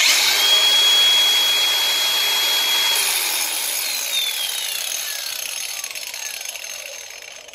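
Makita DGA505 cordless angle grinder fitted with a homemade wall-chasing disc (an old diamond concrete disc with its segments bent outward), switched on and running free at full speed with a steady high whine. About three seconds in it is released and coasts down, the whine falling as it slows. It runs without vibration.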